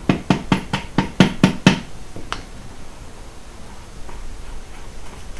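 Rubber mallet tapping the reverse gear down onto its shaft in a Nissan N12 manual gearbox: a quick run of about eight sharp taps, about four a second, then one more tap about a second later before it stops.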